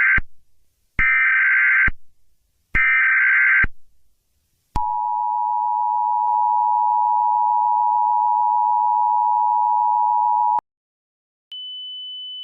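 Emergency Alert System header: three screeching bursts of SAME data tones about a second each, the first already under way, followed by the two-tone EAS attention signal held for about six seconds and cut off sharply. A faint steady high tone comes in near the end.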